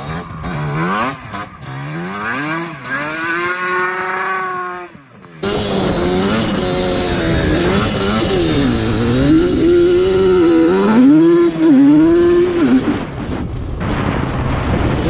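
ATV engine being ridden and revved, its pitch rising and falling over and over. About five seconds in the sound breaks off abruptly and picks up again louder with the same up-and-down revving.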